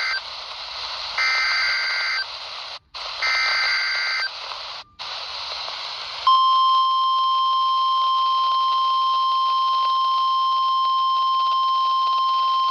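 EAS SAME header data bursts from NOAA Weather Radio station WNG538, heard through a RadioShack 12-254 weather radio: the end of one second-long warbling digital screech and then two more, with radio static between them. About six seconds in, the steady 1050 Hz warning alarm tone starts and holds, the signal that a warning (here a high wind warning) is being broadcast.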